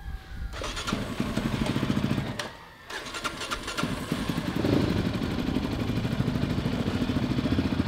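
Single-cylinder engine of a Yamaha Raptor 700 sport ATV starting up about half a second in and running. It dips briefly around two and a half seconds in, then picks up again and keeps running with a short rev near five seconds.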